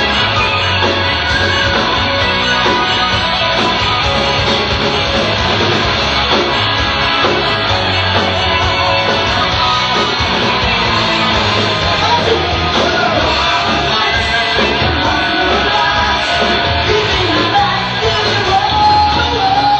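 Live rock band playing loudly: electric guitars and drums, recorded from the audience.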